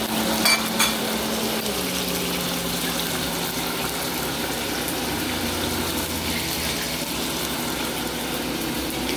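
Tomato and onion sizzling and simmering in a saucepan on a gas burner, a steady hiss. Under it runs a steady hum that drops in pitch about two seconds in, and there are a couple of light clinks near the start.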